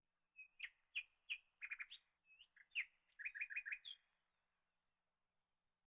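A small bird chirping: a string of short, sharp chirps followed by a quick run of five or so rapid notes, stopping about four seconds in.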